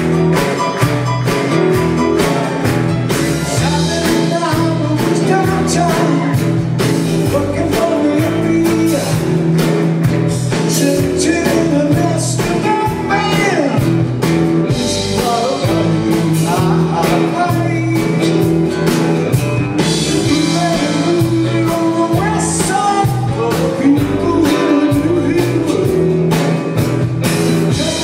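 Live rock band playing a rock-and-roll song with electric and acoustic guitars, bass and drums, and a man singing lead.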